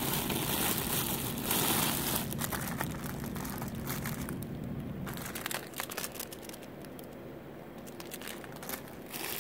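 Plastic jewelry packaging crinkling and rustling as hands rummage through a box, with many small crackles and clicks. Louder at first, thinning out and quieter toward the end.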